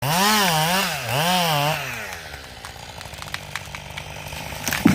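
Chainsaw engine revved up and down twice, then dropping back to idle. A loud thump comes just before the end.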